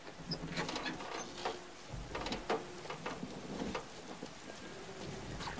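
Steady rain with a string of short metallic clanks and crackles from the crashed airliner's wreckage against the steel bridge, over a low rumble.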